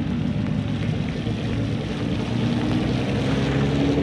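An engine running steadily, a low hum whose pitch slowly rises during the second half.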